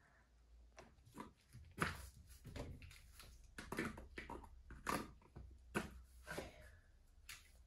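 Scattered short scrapes, clicks and knocks as pliers work at the fixing that holds a canvas painting to the wall and the painting is taken down.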